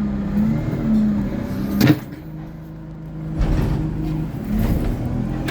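ADL Enviro 200 single-deck bus's diesel engine running with a steady hum. A sharp clunk comes about two seconds in, after which the engine sound drops away and picks up again about a second and a half later.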